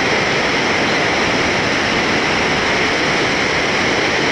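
Steady rushing of whitewater river rapids, an even hiss that doesn't change.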